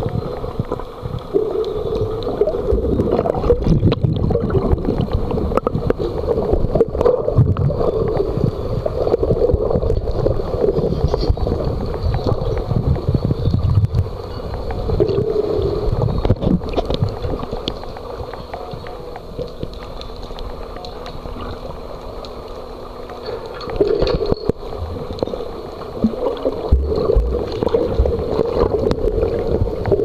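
Muffled underwater gurgling and rumbling of water moving around the camera, coming in uneven surges, with a faint steady hum during a quieter stretch in the second half.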